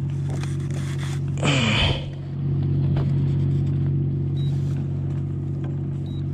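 A motor running steadily with a low, even hum, with a short louder rush of noise about a second and a half in.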